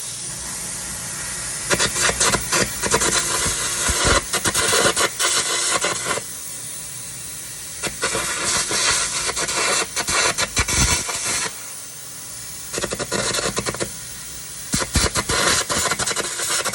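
Electric arc gouging: the welding arc crackles and sputters in runs of a few seconds at a time, with a steady hiss in the pauses between runs.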